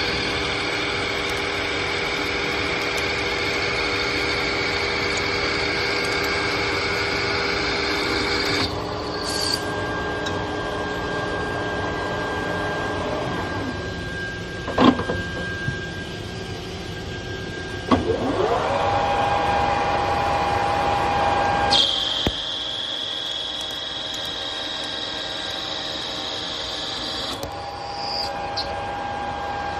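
Metal lathe cutting stainless steel: a steady whine with hiss through several passes, changing pitch abruptly a few times, with two sharp clicks around the middle.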